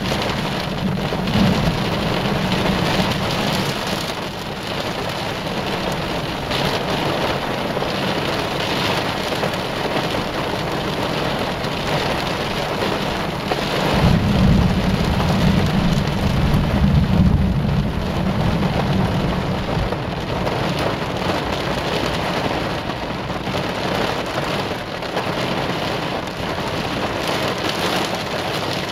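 Heavy rain falling steadily throughout. A low thunder rumble fades over the first few seconds. About 14 seconds in, a louder rumble starts suddenly, together with a lightning flash, which marks a nearby strike, and lasts some six seconds.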